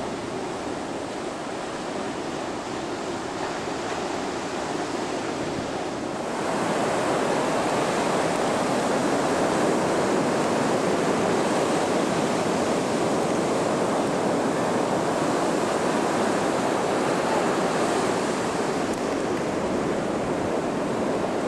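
Ocean surf breaking on a beach, a steady rushing wash that swells louder about six seconds in.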